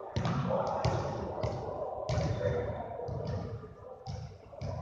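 Basketball bouncing on a hardwood gym floor again and again, each bounce a sharp thud that echoes through the large hall.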